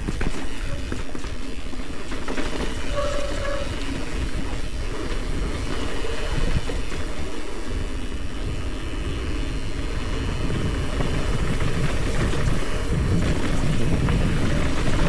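Mountain bike rolling fast down a dirt and gravel trail: a steady, heavy wind-and-tyre rumble with the bike rattling over the rough ground, picked up by a helmet-mounted camera. It swells a little near the end.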